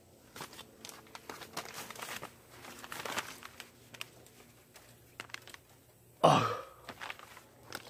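A man clears his throat with one short, loud, harsh burst about six seconds in. Before it there are a few seconds of faint rustling and small clicks.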